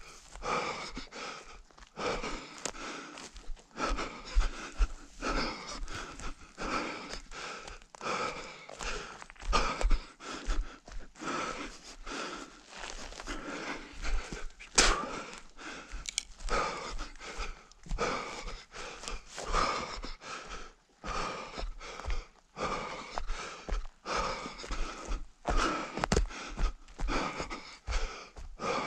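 A runner's hard, rhythmic panting breaths, one every second or less, with footfalls thudding underneath, as in an orienteer running the course.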